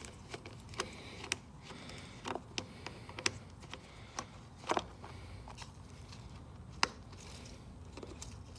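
Scattered light clicks and taps of a screwdriver working the screws of a plastic air filter cover on a Briggs & Stratton Quantum mower engine, with the cover being handled and opened; one sharper click about seven seconds in.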